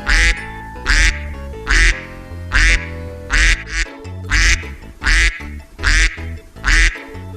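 Duck quacking in a regular series of about nine quacks, roughly one every second, over cheerful children's background music.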